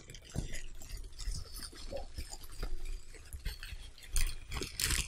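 Plastic bubble wrap crinkling and rustling as a wrapped item is worked out of a cardboard box, in a steady run of irregular crackles. There are louder rustles about four seconds in and again near the end.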